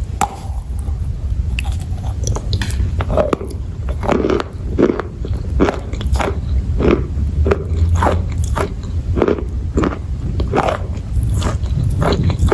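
Close-miked biting and chewing of hard, dry chalk-like pieces, a sharp crunch about every half second to second from a few seconds in, over a steady low rumble.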